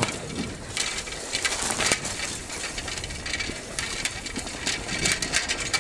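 Bicycle ridden fast over a rough, rutted dirt track: irregular rattles and clicks from the bike jolting over the bumps, over a steady hiss of wind and tyres.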